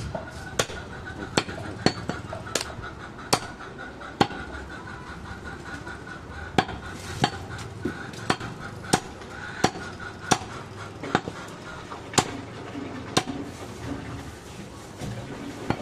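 Heavy butcher's knife chopping on a wooden log chopping block: sharp, short strikes, roughly one every two-thirds of a second, with a brief pause near the middle.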